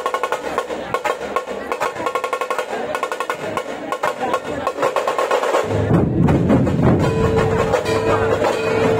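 Dhol tasha troupe drumming: the tashas play a fast, dense roll, and about halfway through the big barrel dhols come in with deep booming strokes under them. A steady held tone sounds over the drums near the end.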